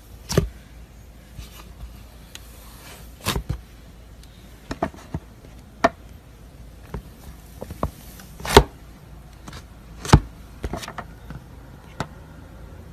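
Fingers poking holes into a thick block of clay slime, giving irregular sharp pops and clicks, about a dozen, the loudest two in the second half.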